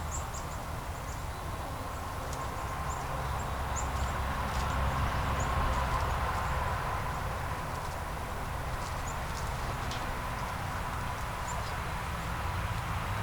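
Chickens in their yard, with short high chirps scattered through and a low steady rumble underneath.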